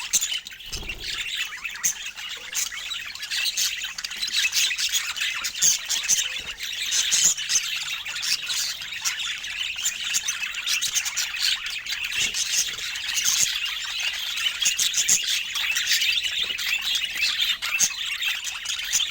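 Budgerigars chattering: an unbroken stream of short, quick chirps and warbles with no pause.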